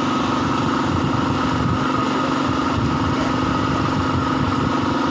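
A small engine running steadily at a constant speed, with an even hum.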